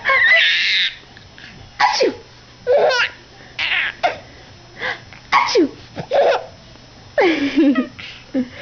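Baby boy laughing in a string of short giggles and squeals, many sliding down in pitch. He is set off by an adult's fake sneezes, the loudest a noisy burst in the first second.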